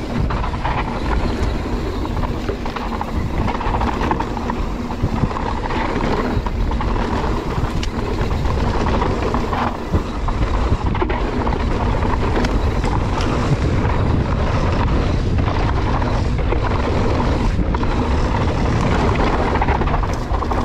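Mountain bike descending a rough dirt trail: wind buffeting the microphone and tyres rumbling over dirt, with many quick knocks and rattles from the bike over bumps.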